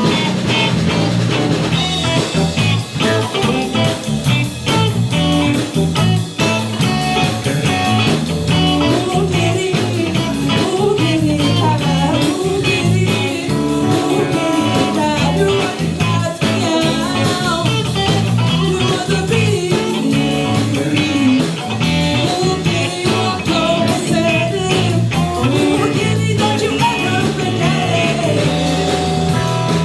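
Live rock band playing an instrumental passage: a guitar line with wavering, bending notes over bass and a drum kit.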